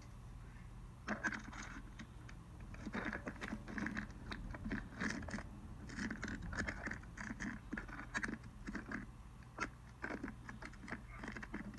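Irregular scraping and scuffing of a caver's clothing and gear against rock while squeezing through a tight crawlway: many short rustles and knocks in quick, uneven succession, starting about a second in.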